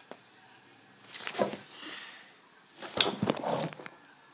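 Paper invoice with clear tape stuck to it being handled close to the microphone: a click, then short bursts of paper rustling and crinkling about a second in and again near three seconds, the later burst the loudest.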